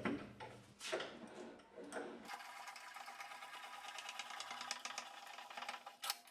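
Woodworking bench vise being wound in by its steel handle: a couple of single knocks, then from about two seconds in a light, fast run of clicks as the lead screw turns and the front jaw closes toward the bench.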